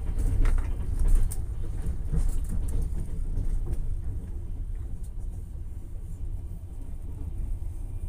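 Train running noise heard from inside a passenger carriage: a steady low rumble with sharp knocks and rattles over the first few seconds, then settling to a smoother, slightly quieter rumble.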